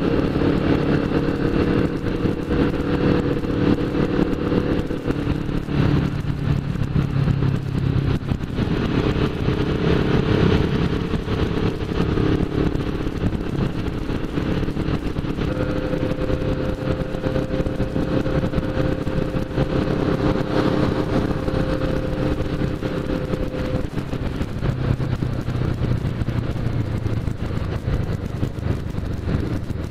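Motorcycle engine running at a steady cruise, heard from the bike itself with wind noise over the microphone. The engine note changes pitch a few times as speed or gear changes.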